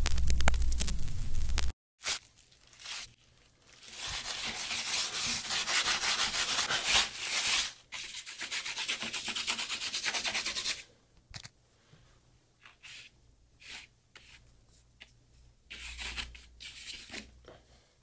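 A loud opening sound effect with several pitches sliding downward, cut off sharply. Then a paintbrush scrubbing paint across a rough surface in long rasping stretches, thinning out to scattered short strokes in the second half.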